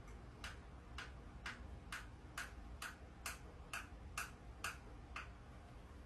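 Evenly spaced sharp clicks, about two a second, from a hand tool driving screws into wooden floor supports.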